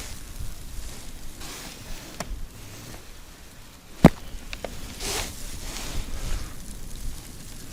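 Wind buffeting the microphone in a blizzard, with surges of hiss and a few small ticks. A single sharp click comes about four seconds in.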